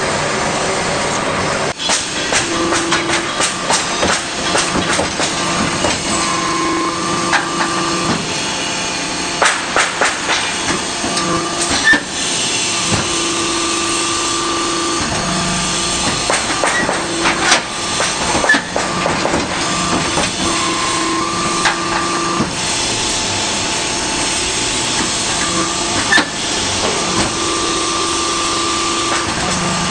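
Automatic hydraulic interlocking brick machine and its conveyors running: a steady hiss, with a hum that comes and goes every few seconds and a few sharp clanks.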